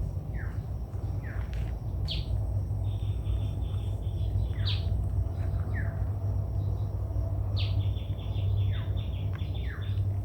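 Wild birds calling in forest: short whistled notes sliding steeply downward, one every second or two, several followed by quick runs of short repeated notes. A steady low rumble runs underneath.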